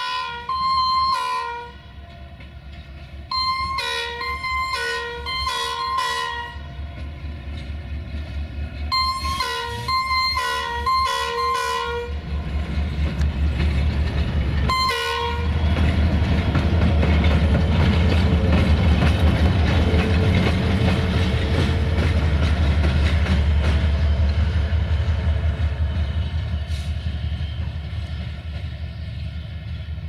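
Diesel locomotive horn sounding in rapid groups of short toots: a long blast at the start, then two quick runs of about five toots each, and a single toot about fifteen seconds in. The locomotive's EMD diesel engine is then heard running loud as it passes close by.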